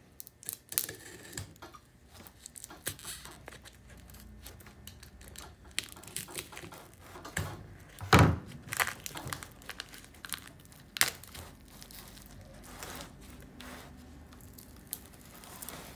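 Cardboard box mold being sliced with a utility knife and torn and peeled off a cast block, with irregular crinkling and ripping. One loud thump about eight seconds in.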